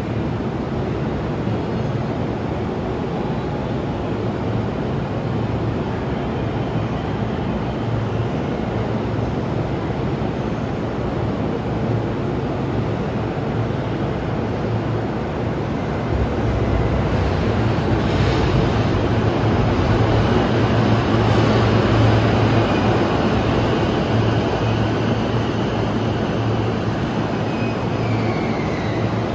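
JR East E233-7000 series electric train pulling into a station platform: a steady rumble over the station's hum, growing louder from about halfway through as the cars roll alongside. Near the end a faint motor whine falls in pitch as the train brakes to a stop.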